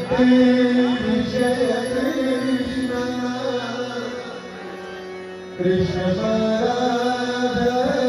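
Indian devotional music with a held, wavering melody. It drops quieter about four seconds in and swells back about a second and a half later.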